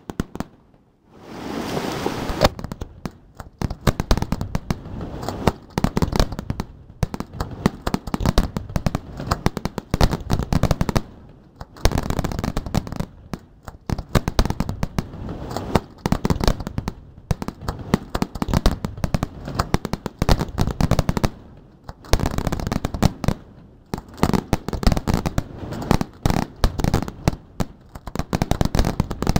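Fireworks display: a dense barrage of aerial shells bursting with rapid bangs and crackling, broken by a few short lulls.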